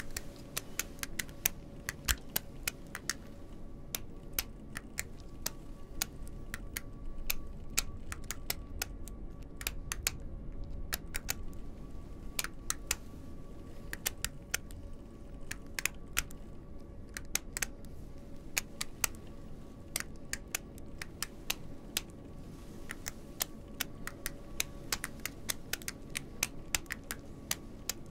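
Quick, irregular light clicks and taps in uneven runs, from small metal pieces (a gold ring and a silver cylinder) handled in white cotton gloves close to the microphone. A faint steady hum runs underneath.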